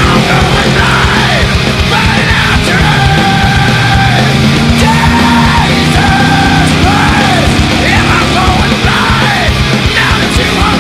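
Loud rock music with shouted, yelled vocals over a full band, playing steadily.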